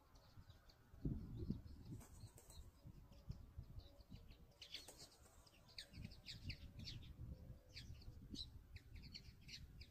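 European goldfinches twittering: faint runs of quick, high chirps that grow busier about four seconds in, over a low rumble.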